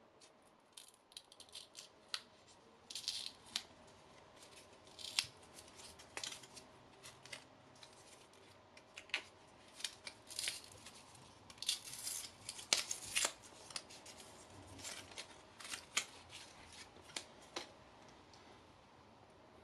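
Packaging crinkling in irregular short rustles, with small clicks as a Lightning to USB cable is unwrapped and handled.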